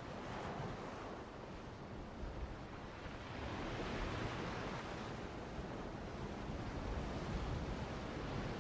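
Soft ocean-surf ambience: a steady wash of waves with slow, gentle swells.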